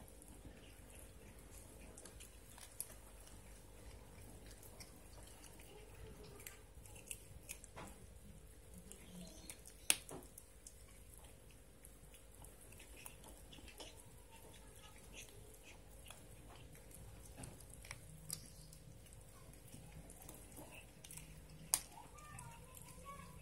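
A young hybrid cat chewing and biting raw chicken: faint wet chewing with scattered sharp clicks of teeth on meat and bone, the loudest about ten seconds in and again near the end.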